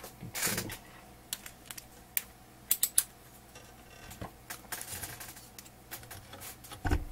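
Scattered light clicks and rustles as multimeter test leads and probes are picked up and handled, with a few sharper clicks about two to three seconds in and a dull thump near the end.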